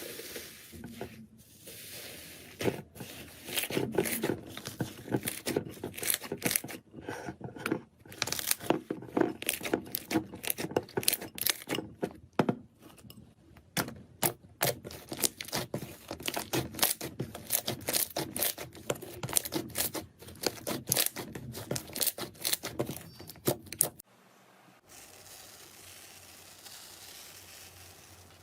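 Slime being squished, stretched and pressed by hand, giving a dense run of crackling, popping sounds. About 24 seconds in it cuts off abruptly to a quieter, steady hiss.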